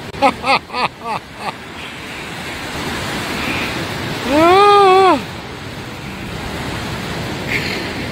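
A man's excited voice over steady wind and surf noise: a quick run of five short cries that fade one after another, then about halfway a long, loud, drawn-out exclamation that rises, holds and falls in pitch.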